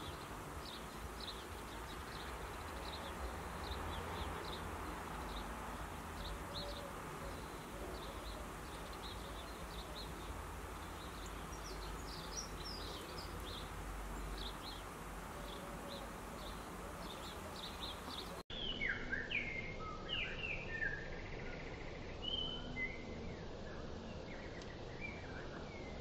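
Garden ambience: a steady low rumble under many faint, short, high chirps from songbirds. About two thirds of the way through the sound cuts abruptly, and a nearby songbird sings short, clear phrases of falling notes.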